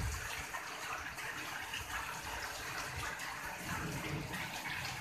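Heavy rain falling steadily and splashing onto a flooded paved passage, with water running off the ground.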